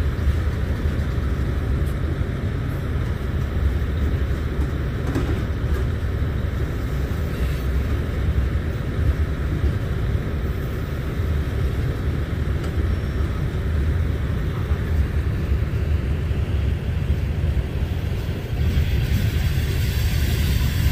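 Freight train rolling past with a steady low rumble and a few faint clicks from the wheels.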